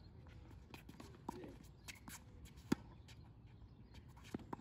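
Tennis rally on a hard court: ball struck by rackets and bouncing, heard as a few sharp, separate pops, the loudest a little past halfway and two close together near the end.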